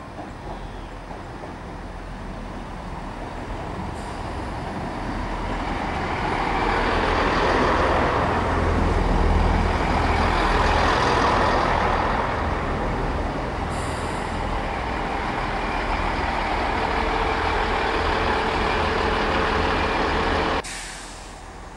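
Chiltern Class 165 diesel multiple unit running into the platform: engine rumble and wheel-on-rail noise build as it draws alongside and are loudest about 8 to 12 seconds in. The noise then holds steady, with a brief hiss about 14 seconds in and a steady whine joining later. The sound cuts off suddenly about a second before the end.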